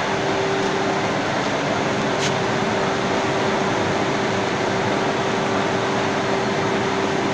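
Flexographic printing machine for HDPE bags running, a steady mechanical noise with a steady mid-pitched tone and one brief tick about two seconds in.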